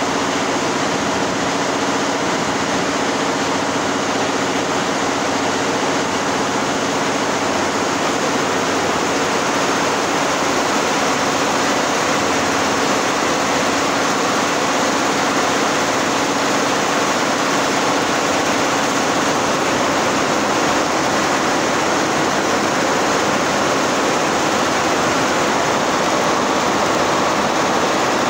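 A long row of multi-head industrial embroidery machines running: a loud, steady mechanical din.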